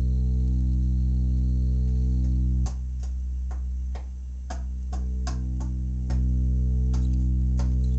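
Conn Minuet 541 valve organ being played: a held low chord, then from about three seconds in a run of short staccato notes with clicky attacks, two or three a second, before a held chord returns near the end.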